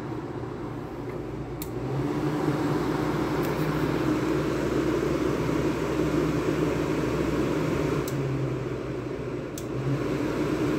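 1975 Climatrol (Fedders) window air conditioner running its fan. About two seconds in it gets louder and a steady low hum comes in, with a few faint clicks.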